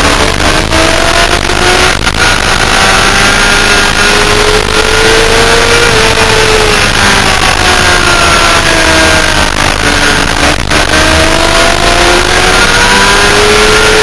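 Sport motorcycle engine heard onboard at track speed under heavy wind rush on the microphone. The engine revs climb, drop for several seconds from about six seconds in, then climb again near the end.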